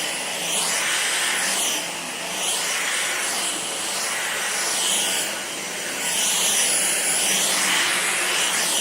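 A vacuum's motor running with a steady whine, its whoosh rising and falling every second or so as it is pushed back and forth over carpet, picking up tangled pet-fur balls.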